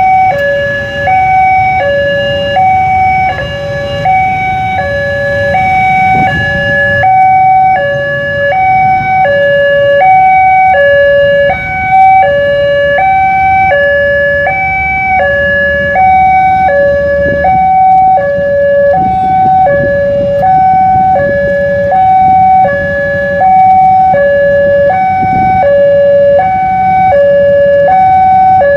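Electronic level-crossing warning alarm from the loudspeaker on the crossing signal post, switching steadily between a low and a high tone about twice a second while the barrier closes: the signal that a train is approaching. The engine rumble of waiting road traffic runs beneath it.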